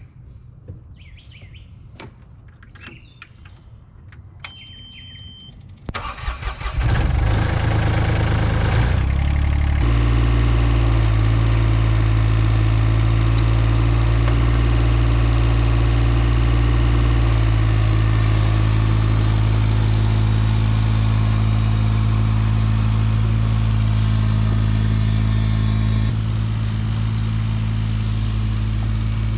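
A mini excavator's engine is cranked and catches about six seconds in, runs unevenly for a few seconds, then settles into a steady idle. Before the start there are a few clicks, some bird chirps and a brief steady beep.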